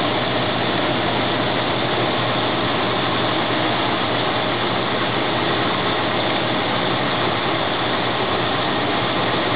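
Ford 302 small-block V8 running steadily, with no change in speed.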